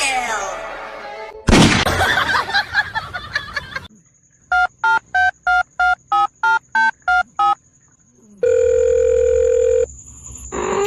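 Telephone-style sound effects: about eleven quick, evenly spaced keypad beeps like a number being dialed, then after a short gap a steady tone lasting just over a second. Before them, a loud, busy burst of noisy sound.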